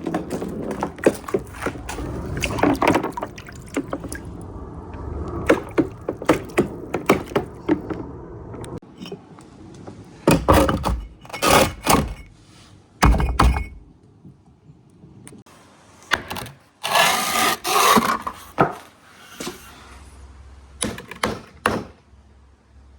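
Marbles rolling down the slopes of a marble run. For the first eight seconds or so there is a continuous rolling rumble full of clicks. After that come scattered clacks and knocks, with a dense clatter about seventeen seconds in.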